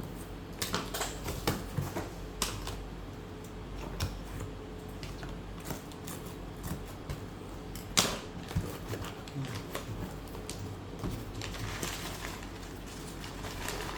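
Drone box and packaging being handled and opened: irregular clicks, taps and rustles, with one sharp click about eight seconds in.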